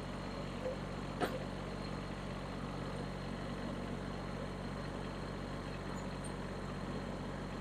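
Kubota BX2380 compact tractor's three-cylinder diesel engine running steadily, with one short knock about a second in.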